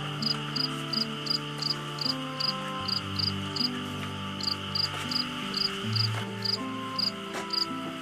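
Crickets chirping in an even rhythm, about two to three high chirps a second, over a steady insect hiss and soft, slowly changing low music notes.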